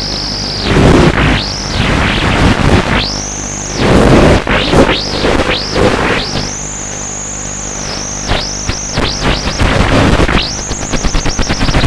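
High-pitched whine of an FPV model's electric motors and propellers, swooping down and back up in pitch again and again as the throttle is cut and reapplied, with a rush of noise at each dip and a quick series of throttle blips near the end.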